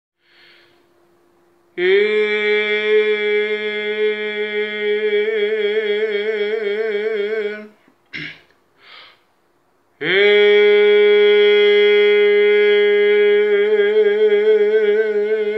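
A singer belting a sustained G#3, held twice for about six seconds each with a short pause between. Each note starts straight and a vibrato creeps in during its second half.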